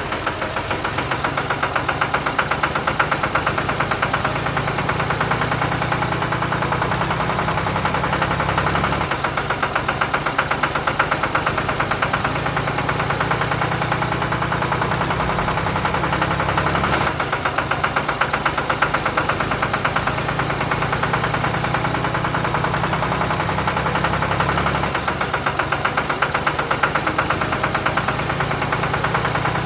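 Tractor diesel engine sound effect, running steadily with a fast, even chug. The pattern repeats about every eight seconds, like a loop.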